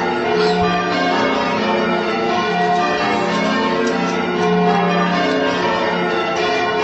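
Ring of eight church bells, tuned in F major with a 12-3-11 tenor, being rung in changes: the bells strike one after another and their tones overlap in a continuous peal.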